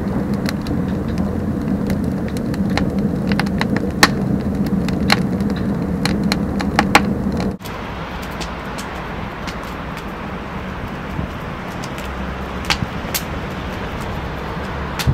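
Batch-box rocket burner firing hard: a steady rush of draw through the burner, with sharp crackles and pops from the burning wood. About halfway through, the sound drops to a quieter, smoother rush with only a few pops.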